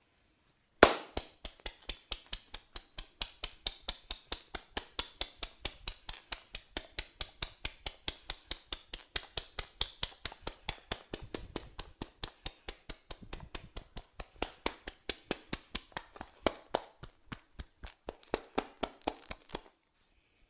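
Percussive massage strikes, sharp rhythmic taps on the body at about three to four a second. The run opens with one loud strike about a second in and quickens near the end.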